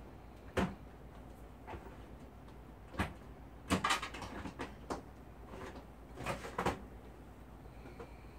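Irregular knocks and clatters of kitchenware and cupboard doors being handled at a kitchen counter, loudest about half a second in and in a quick cluster around four seconds in.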